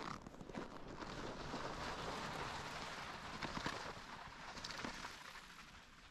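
Footsteps crunching through snow, an uneven run of crunches over a steady noisy hiss.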